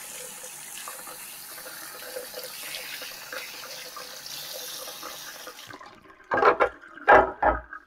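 Kitchen tap running steadily into a ceramic sink as a juicer auger is rinsed under the stream. The water stops near the end, followed by a few loud knocks as parts are handled in the sink.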